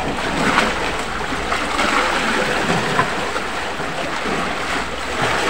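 Sea waves washing against a rocky shore, a steady rush with wind on the microphone, broken by a few small clicks.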